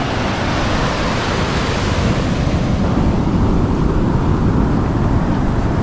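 Ocean surf breaking and washing up a sandy beach, swelling as a wave rushes in about two seconds in, with wind rumbling on the microphone.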